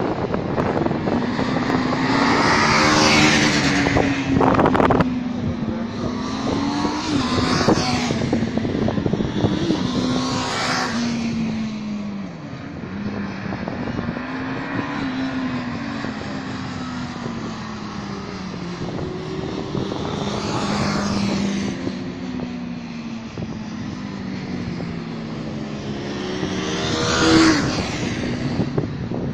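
Several motorcycles lapping a race circuit, their engines revving up and falling back in pitch again and again as they accelerate and brake. A handful of bikes pass closer and louder, the loudest near the end.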